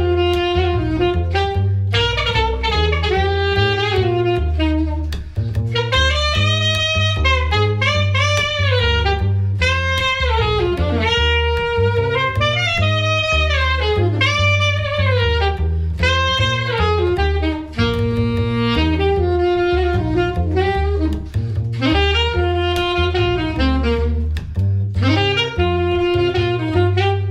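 A saxophone plays a running jazz melody line over a double bass walking steadily underneath: a sax and upright bass duo with no other instruments.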